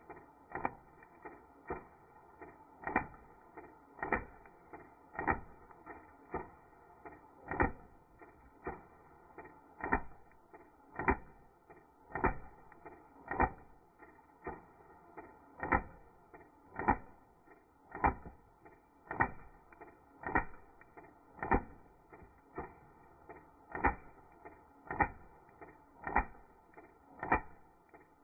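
Slowed-down sound of an airsoft gun firing a steady stream of BBs into a paper bag: evenly spaced dull cracks about two a second, every other one louder.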